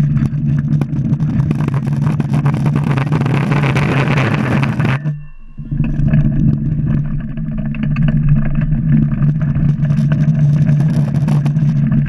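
Drift trike rolling fast downhill on asphalt: a loud, steady rumbling drone from its wheels on the road surface. A harsher hiss builds over the first few seconds, then the sound cuts off abruptly about five seconds in and resumes half a second later.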